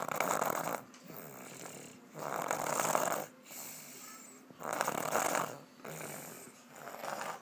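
Snoring in a slow, even rhythm: a loud, rough snore about every two and a half seconds, with quieter breathing between.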